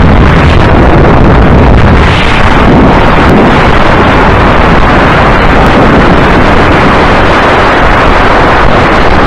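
Go-kart at speed heard from its onboard camera: a loud, dense rush of wind buffeting the microphone mixed with the kart's engine, with no clear engine note.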